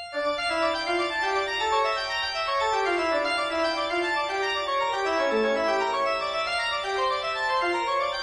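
Organ music: a brisk run of stepping notes over a lower moving line, starting just after a held chord breaks off.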